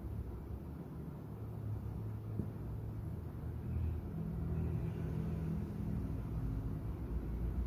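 Steady low background rumble, like a running engine, with no sharp events.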